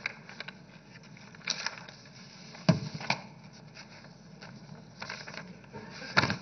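Sheets of paper being leafed through and rustled close to the microphone, in short scattered rustles, with two sharper knocks, the louder one a little under three seconds in.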